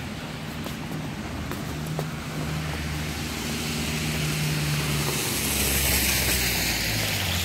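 A car passing close on a wet, slushy road: engine hum and tyre hiss through the slush build up to a peak a little before the end, then begin to fade.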